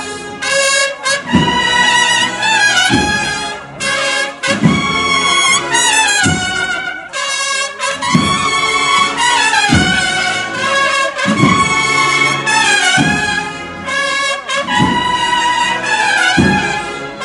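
Spanish processional brass band playing a slow march, trumpets and trombones carrying the melody, over a deep drum beat about every second and a half.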